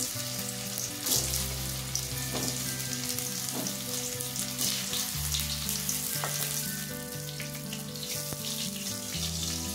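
Whole boiled potatoes sizzling and crackling in hot oil in a pan, with a few sharper spits as more potatoes are dropped into the oil.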